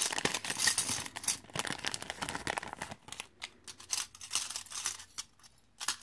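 Thin clear plastic bag crinkling as hands dig into it and pull out jewellery, dense for about three seconds, then thinning to scattered rustles and small clicks as the metal rings are handled.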